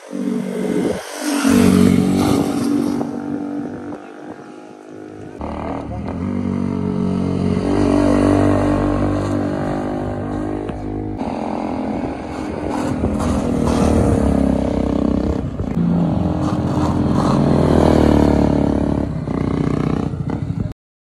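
Motorcycle engine revving and easing off repeatedly as the bike is ridden through a corner, rising to several loud peaks; the sound cuts off abruptly near the end.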